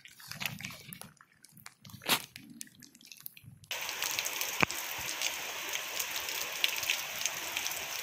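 Quiet water sounds over wet rock with a few small clicks and a sharp knock, then, about halfway through, an abrupt switch to a steady hiss of rain and running water.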